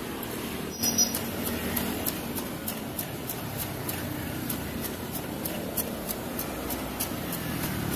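Hand-levered blade cutter chopping peeled sugarcane into chunks, a quick run of crisp chops at about three a second, with one louder sharp clack about a second in.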